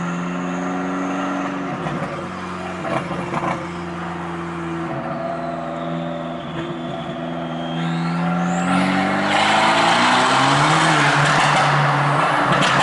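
Tuned Fiat Punto Evo 1.4 MultiAir four-cylinder turbo engine, with a Garrett 1446 turbocharger, running with a steady engine note and a few short crackles about two to three seconds in. Its pitch climbs from about eight seconds in, with a rising whistle, into a loud rushing full-throttle sound for the last few seconds.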